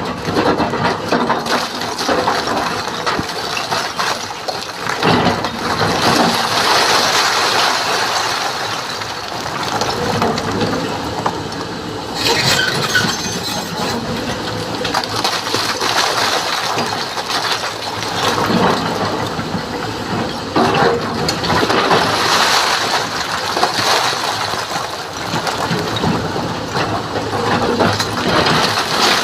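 SANY hydraulic excavator's diesel engine running under load while working rock, with stones clattering and knocking at times.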